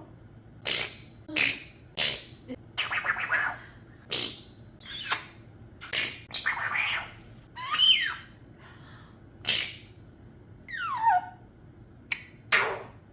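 A pet parrot making a quick run of short, sharp mouth noises: pops, squawks, clicks and a falling whistle about eleven seconds in, about fifteen separate sounds with short gaps between them.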